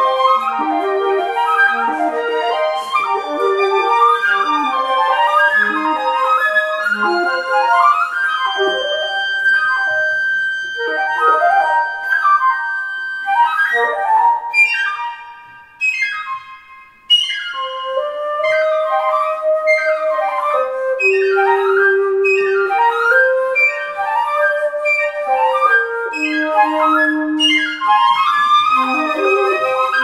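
Flute trio playing quick interweaving runs and trills, with one long held high note. About halfway through the music drops briefly to a quiet moment, then resumes with lower held notes under fast figures.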